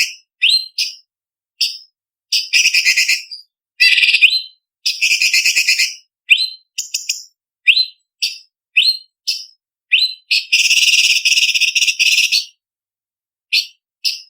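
Orange-bellied leafbird (cucak cungkok) singing in a varied, packed song. Short sharp upward-whistled notes alternate with fast, harsh chattering runs, and the longest chatter lasts about two seconds near the end.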